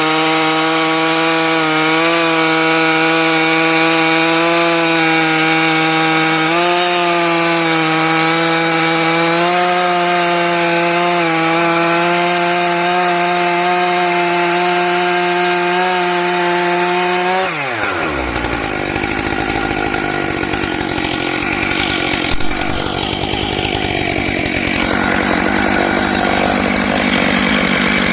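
Stihl MS661 two-stroke chainsaw on a chainsaw mill running at full throttle as it rips a log lengthwise, its pitch dipping slightly now and then under load. About two-thirds of the way through, the throttle is released and the engine drops quickly to idle, then revs back up at the very end.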